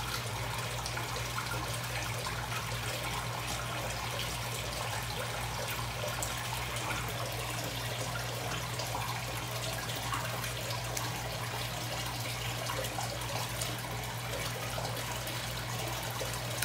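Water in an indoor fish pond running and trickling steadily as it circulates, with a constant low hum underneath.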